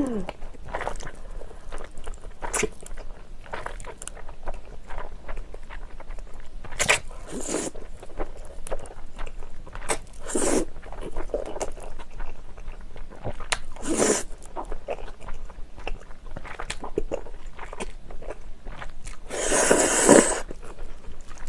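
Close-miked eating of jjajangmyeon, noodles in black bean sauce: wet chewing clicks and mouth sounds, broken by several loud slurps of noodles, the longest near the end.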